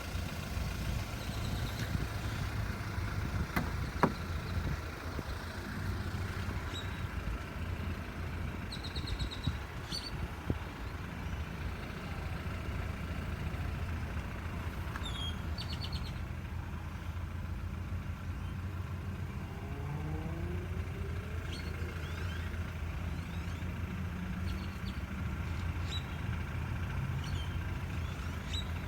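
BMW 328i engine running steadily, the engine sound its owner calls bad, with a sharp click about four seconds in. Birds chirp briefly a few times.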